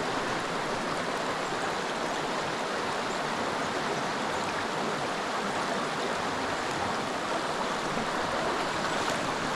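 Creek water rushing steadily, a constant even rush with no breaks.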